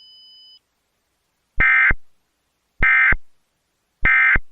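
Emergency Alert System end-of-message (EOM) signal: three short, identical digital SAME data bursts with a raspy electronic warble, about 1.2 s apart, closing the alert.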